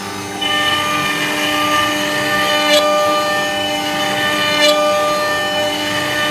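CNC router spindle cutting wood on a roughing pass: a steady whine made of several tones that gets louder about half a second in as the bit takes the cut, with three brief sharp sounds about two seconds apart.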